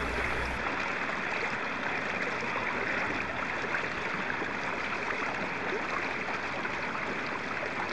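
Steady rush of water flowing into and between flooded rice paddies at rice-planting time.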